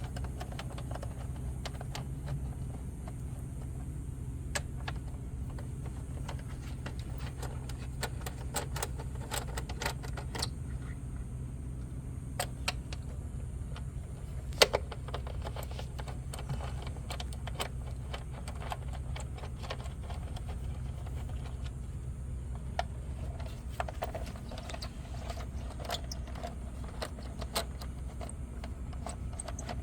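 Small metallic clicks and taps of a hand tool working the screws on the air filter housing of a 1994 Honda Accord, scattered irregularly, with one sharper knock about fifteen seconds in. A steady low hum runs underneath.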